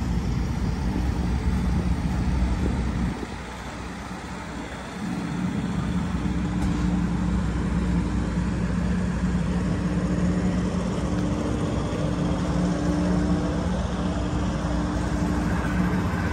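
Steady motor hum over a low rumble, which drops away for about two seconds a few seconds in and then returns.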